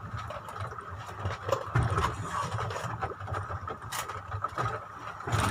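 Boat's twin outboard motors running steadily, with small knocks and a sharp click about four seconds in.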